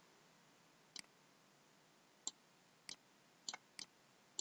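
Faint computer mouse clicks, about six spread over a few seconds, some single and some in quick pairs.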